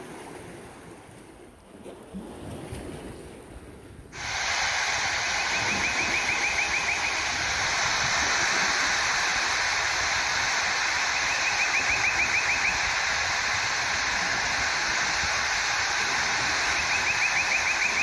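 Soft water noise with a few low thuds, then about four seconds in a sudden loud, steady rush of flowing water takes over. A bird's rapid trill rises above it three times.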